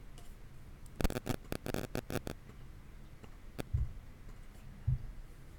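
A quick run of about ten faint clicks from a computer mouse, then two more single clicks, each with a dull knock, near the end.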